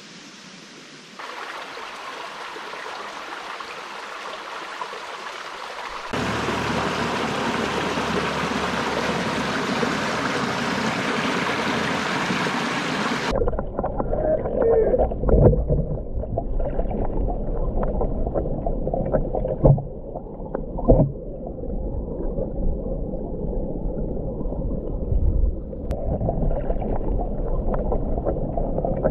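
Creek water running with a steady hiss. About 13 seconds in the sound turns muffled and low as the camera goes underwater in the creek: a rumbling, gurgling underwater wash with a few knocks.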